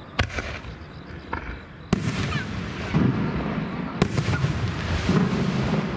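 Aerial firework shells bursting: three sharp bangs about two seconds apart, each trailed by an echoing rumble.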